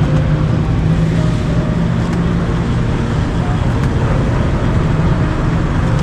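Motor vehicle engine running steadily at idle, a low hum, with road traffic noise.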